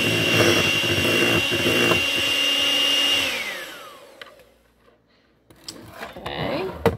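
Handheld electric mixer running steadily, its beaters whipping Cool Whip and milk in a metal bowl; a little over three seconds in it is switched off and the motor whine falls in pitch as it winds down. A few light knocks follow, with a sharp click near the end.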